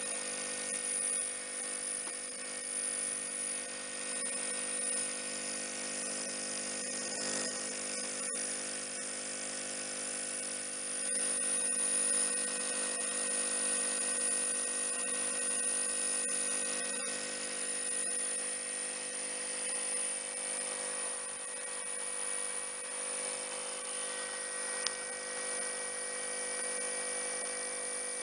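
Airthereal AH1000 ozone generator running with its ozone tubes energized: a steady electrical hum of several held tones over an even hiss, with a few faint clicks.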